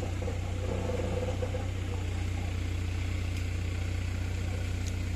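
Crane's engine idling steadily, a low, even hum.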